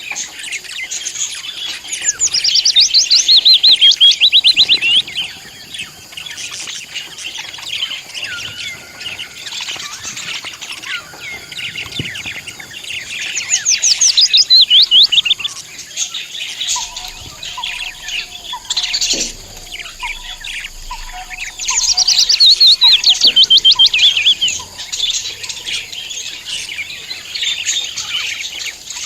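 Budgies chattering and warbling, broken three times by loud runs of rapid chirps that fall in pitch. Through the middle there is also an evenly spaced series of short, steady-pitched notes.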